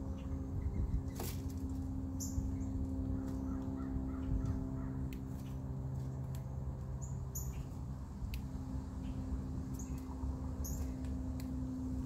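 Blue jay calling over a steady low hum, with scattered light clicks.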